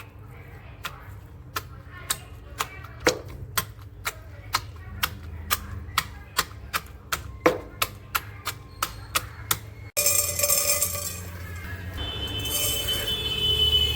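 Sharp knocks in quick succession, about two to three a second, as of food being worked on a hard kitchen surface. After about ten seconds they give way abruptly to a steady hissing noise.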